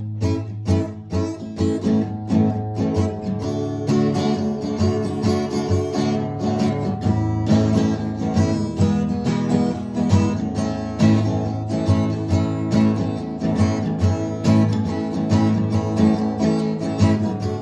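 Acoustic guitar being strummed in a steady rhythm, its chords ringing on between strokes.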